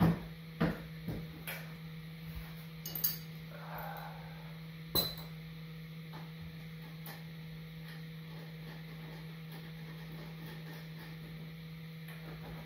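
Metal clinks and knocks from the motorcycle's exhaust being worked into place, a handful in the first five seconds with the loudest about five seconds in. After that only a steady low hum remains.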